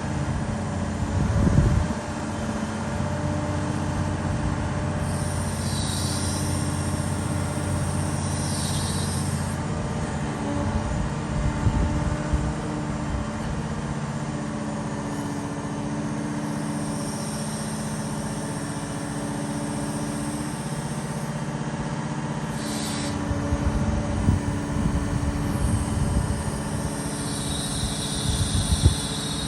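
Liebherr R946 SHD long-reach excavator's diesel engine running steadily, with high-pitched squeals coming and going several times and a few heavy low thuds.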